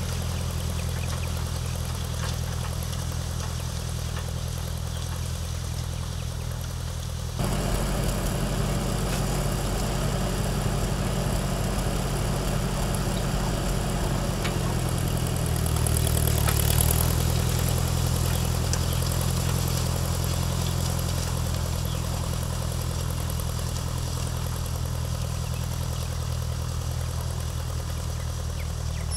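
1955 Ford 650 tractor's four-cylinder gasoline engine working steadily while pulling a disc harrow through tilled garden soil. It steps up suddenly in level about seven seconds in and is loudest a little past halfway, as the tractor passes close.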